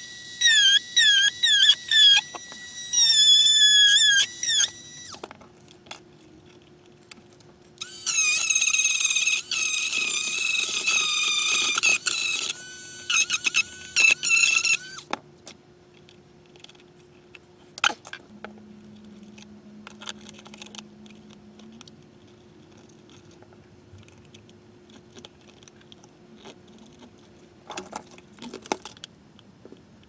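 Handheld high-speed rotary tool cutting an opening in a plastic container, whining with its pitch dipping each time it bites into the plastic. It runs in two bouts, one in the first few seconds and a longer one from about 8 to 15 seconds in, after which only faint clicks are heard.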